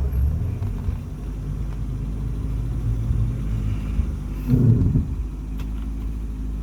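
Off-road vehicle's engine running low and steady while crawling along a trail, with a brief louder surge about four and a half seconds in.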